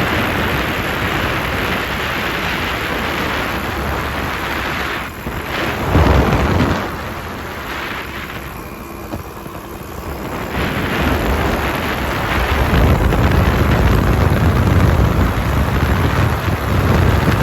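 Wind buffeting the microphone on a moving scooter, a steady rushing noise with heavy low rumbling gusts about six seconds in and again through the second half.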